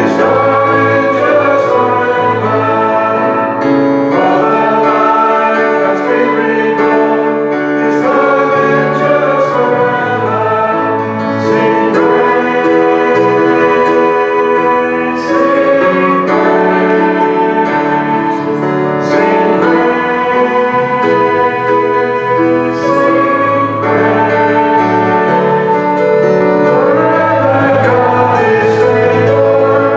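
Worship song: voices singing over a full instrumental accompaniment, sustained chords changing every second or so.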